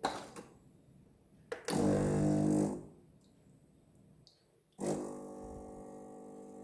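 Background guitar music: a chord struck at the start rings out and fades, and another is struck about five seconds in. Between them comes a loud buzzy burst of about a second.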